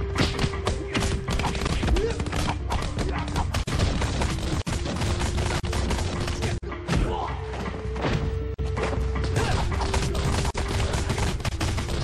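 Film fight soundtrack: a rapid, unbroken run of punch and hit sound effects, several a second, over music with long held notes.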